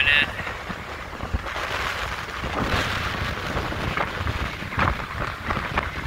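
Heavy surf from large storm waves on a big lake, a steady rushing with swells as waves break and wash up the beach, with wind rumbling on the microphone.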